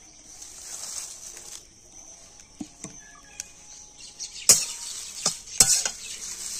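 A metal spatula scraping and knocking against a kadai as chopped leaves are stirred in with dry-roasting spices: a few sharp strokes, starting about four and a half seconds in. A steady high chirring of insects runs underneath.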